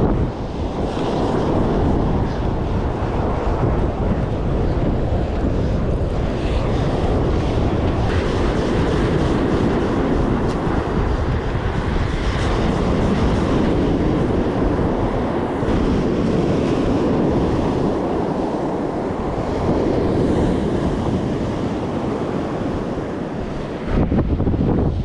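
Wind buffeting the microphone over the rush of surf breaking on a beach in a choppy sea; the wash swells and eases in waves, with heavier low wind rumble near the start and end.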